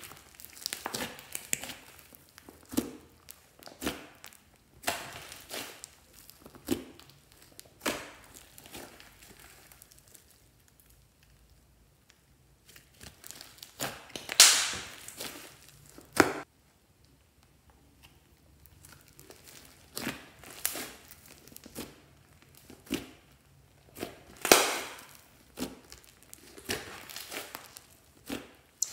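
Hands squishing, folding and pressing a mass of slime studded with tiny white beads, giving irregular crackling, squelching bursts. The loudest bursts come about halfway through and again a few seconds before the end.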